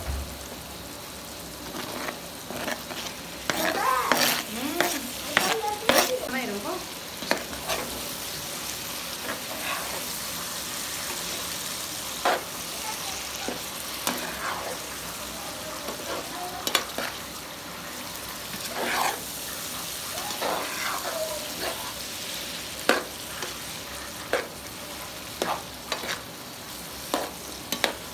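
Diced sheep offal and chopped tomatoes sizzling steadily in a frying pan, stirred with a metal spoon that clinks and scrapes against the pan in irregular strokes, busiest a few seconds in and again past the middle.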